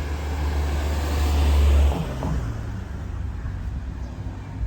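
A vehicle passing close by: its rumble and tyre hiss build up, then fall away sharply about two seconds in.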